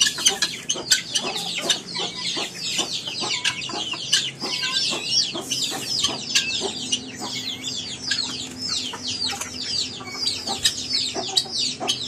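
Chicks peeping without pause in a fast run of high, falling cheeps, mixed with hens' calls and scattered sharp clicks.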